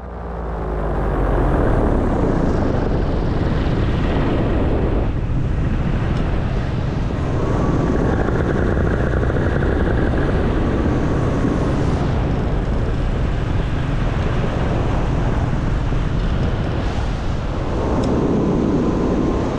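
Paramotor in flight with its two-stroke engine throttled back to idle, under heavy wind rush on the microphone. The noise is loud and steady throughout.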